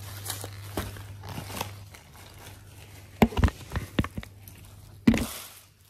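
Plastic carrier bags and paper takeaway boxes rustling and crinkling as food is unpacked. About three seconds in comes a cluster of heavy knocks and bumps from the phone being handled, with another bump near the end.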